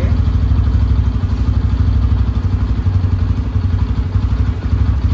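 Bajaj Pulsar N160's single-cylinder engine idling steadily.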